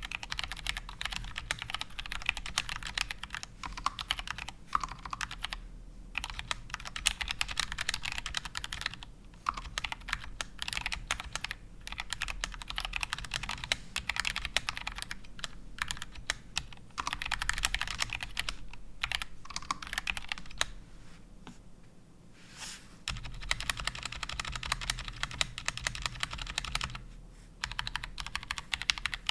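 Fast typing on a GMMK Compact mechanical keyboard with Gateron Brown tactile switches, the keys clacking in quick runs broken by brief pauses.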